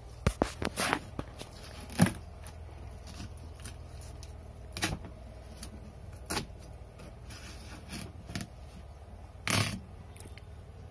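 Kitchen knife cutting through a whole watermelon: a string of short, sharp crackles and scrapes as the blade breaks into the rind and the melon splits open, the loudest about two seconds in.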